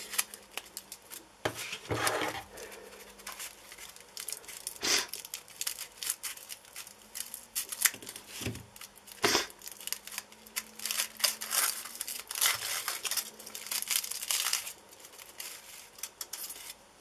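Aluminium foil crinkling and tearing as a wrapped packet is unpicked by hand, with small scissors snipping through the foil: an irregular run of crackles and short rustles.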